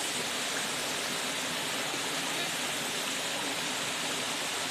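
Steady rush of water from the upper tier of Mae Yian waterfall, an even, unbroken hiss of falling and running water over rocks.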